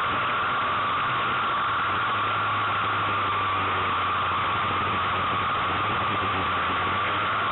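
A racing kart's engine running hard, heard through an onboard microphone as a steady, harsh noise with a sustained high whine and a low drone underneath.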